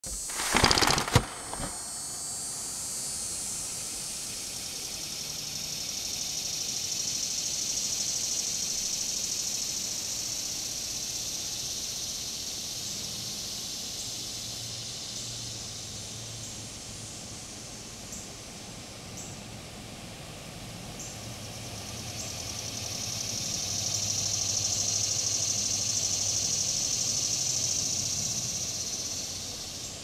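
Cicadas buzzing in a high, steady drone that swells up and fades away twice. A short, loud burst of noise right at the start.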